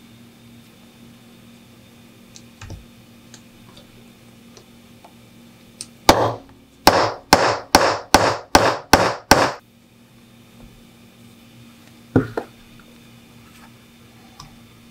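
A hammer striking a metal setter tool about eight times in quick succession, two to three blows a second, setting a fastener through a leather strap on a wooden block. A few faint clicks come before it, and one more sharp knock near the end.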